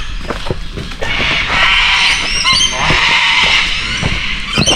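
A dense chorus of many birds calling at once, loud and chattering, with many short rising and falling calls that thicken from about a second in.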